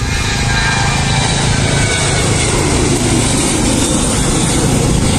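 The twin CFM56-7B turbofan engines of a Boeing 737-800 at takeoff thrust as the airliner climbs out after lift-off. The jet noise is loud and steady, with a deep rumble under the hiss, and grows a little louder at the start.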